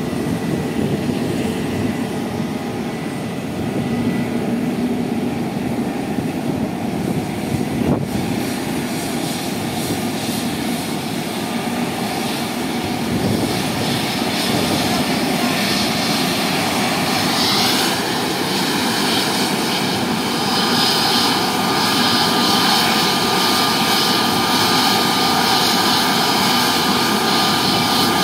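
COMAC C919 airliner's CFM LEAP-1C turbofan engines running at taxi power as the jet taxis and turns toward the listener. The steady jet rumble grows louder, and a high engine whine comes in a little past halfway and holds.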